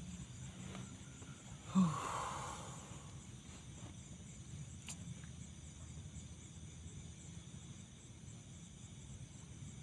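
Outdoor ambience with a faint, steady high insect drone. About two seconds in, a single knock is followed by a rush of noise lasting about a second, and there is a faint click a few seconds later.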